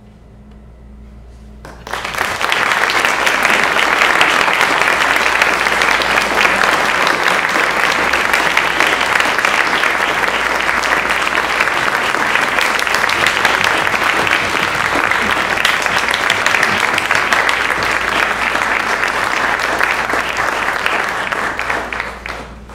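Audience applauding, breaking out suddenly about two seconds in and dying away near the end.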